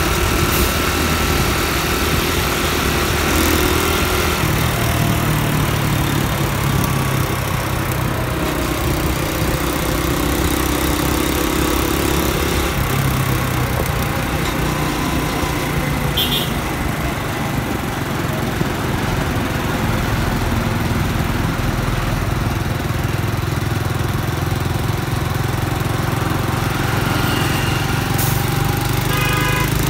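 Honda Dream motorcycle's single-cylinder four-stroke engine running steadily while riding, with road and wind noise. The engine pitch shifts a few times as the speed changes.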